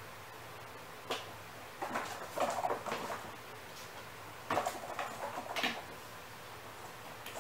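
Kittens scrambling in and around a plastic pet carrier: a scatter of short knocks, scuffs and rattles from small paws and claws on the plastic shell and the hard floor, in clusters about a second in, around two to three seconds in, and again near the middle.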